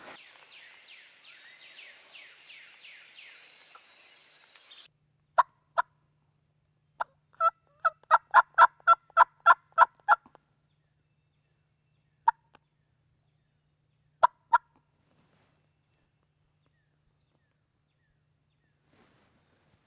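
Turkey yelping: a few single notes, then a quick run of about ten yelps at roughly five a second, then a few more spaced out. Faint songbird chirping is heard for the first few seconds and cuts off suddenly.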